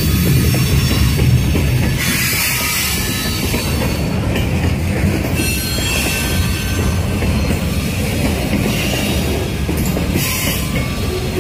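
Freight cars rolling past on the rails: a steady, loud low rumble of steel wheels on track, with faint high wheel squeal above it.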